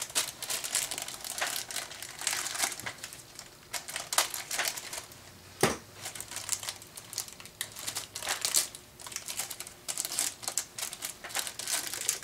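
Packaging crinkling and rustling in gloved hands as a new set of two-stroke piston rings is unwrapped, with one sharp tap about halfway through.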